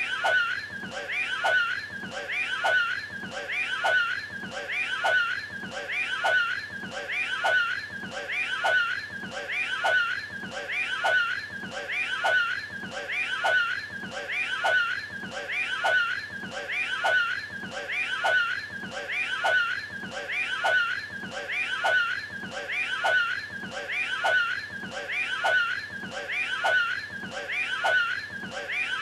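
The Cat in the Hat character's short, high-pitched vocal strain as he throws the hairball, looped over and over about once a second.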